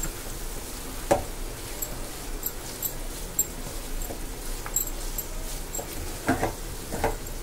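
A wooden spatula stirring and scraping thick, grainy moong dal halwa around a nonstick pan, with louder scrapes about a second in and twice near the end. Under it, small crackles of the ghee frying as the halwa cooks on the flame.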